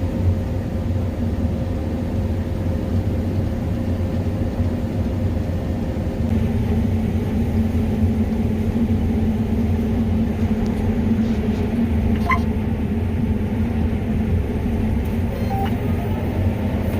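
Combine harvester running steadily while harvesting soybeans: a low, continuous engine and machinery rumble that thickens slightly about six seconds in, with a brief beep about twelve seconds in.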